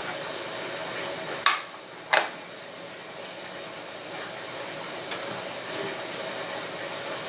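Balsa-stick covering frame handled while a paper towel smears petroleum jelly along it: two sharp knocks a little over half a second apart, about a second and a half in, over a steady background hiss.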